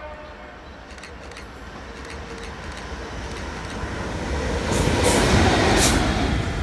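GBRf Class 66 diesel locomotive, an EMD two-stroke V12, running light engine. It grows steadily louder as it approaches, with its engine and wheels on the rails, and is loudest as it passes close by about five seconds in, with a couple of sharp rail clatters there.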